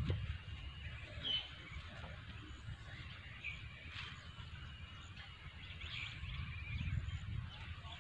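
Birds chirping now and then, short high calls several times, over a steady low rumble.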